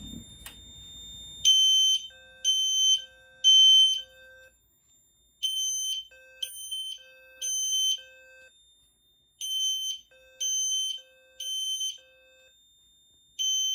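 A System Sensor P2WL horn strobe sounds in the temporal-three pattern on its 3 kHz low setting: three half-second high beeps, a pause, then again, starting about a second and a half in. A second, lower alarm tone pulses in the same three-beat pattern alongside it.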